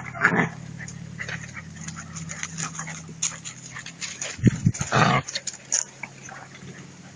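Puppies playing, with small whimpers and yips over many short scratching and scuffling clicks, and a louder jumble about four and a half to five seconds in.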